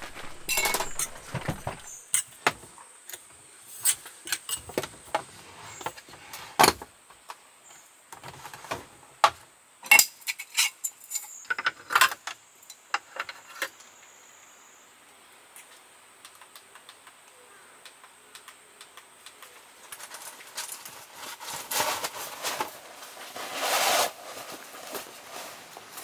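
Camping gear being handled on a gravel pitch: a run of sharp clicks, knocks and light metallic clinks, with steps on gravel, through the first dozen or so seconds, then a quieter stretch with a faint steady high whine, and a burst of rustling from tent fabric near the end.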